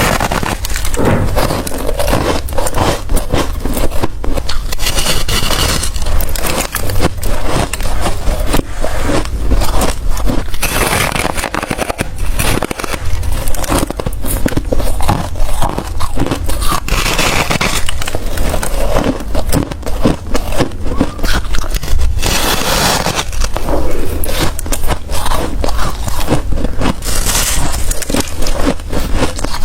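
Close-miked biting and chewing of white freezer ice and frost: a dense, continuous run of crunching and scraping.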